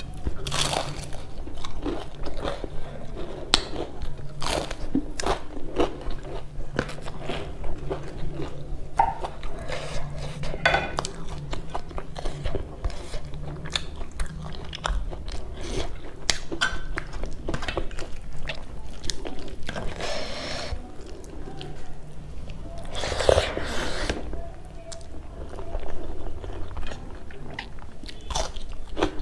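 Close-up mukbang eating sounds: repeated crisp crunches and chewing as a person bites into fried chive pakoras and a raw shallot. A few longer noisy bursts come about two-thirds of the way through.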